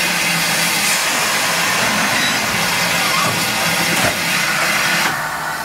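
Standing 1896 Horwich-built steam locomotive hissing steadily with a faint low hum underneath; the hiss softens a little near the end.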